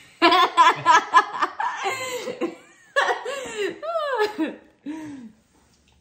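A woman laughing in quick bursts, the laughs falling in pitch and dying away about five seconds in.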